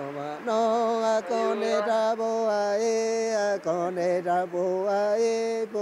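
A single voice chanting an icaro, the sung healing chant of an Amazonian ayahuasca ceremony, in long held notes that waver slightly and step between pitches every second or so.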